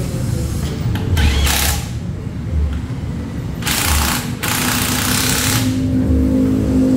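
Three short bursts of hissing, rattling tool noise, each about half a second to a second long, about a second in, near four seconds and near five seconds, over a steady low hum, as the mounting of an aftermarket exhaust on a Honda ADV 160 scooter is worked on.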